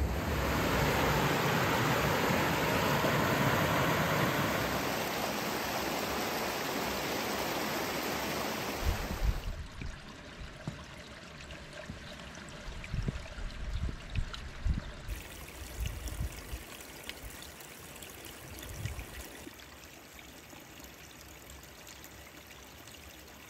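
Mountain stream rushing over rocks as a steady wash of water noise, which cuts off suddenly about nine seconds in to a quieter trickle beside a frozen pool. Over the trickle come scattered footsteps on the rocks.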